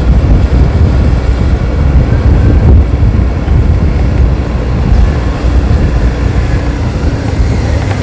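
Wind rumbling on the microphone over the steady engine noise of a motorbike riding along a lane.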